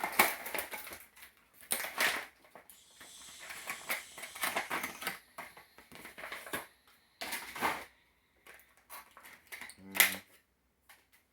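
Action-figure packaging being pried open by hand: irregular crackling and clicking of the plastic blister and cardboard, with a short stretch of rustling hiss a few seconds in.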